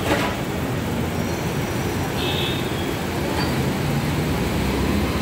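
Steady low rumbling noise with a short knock right at the start.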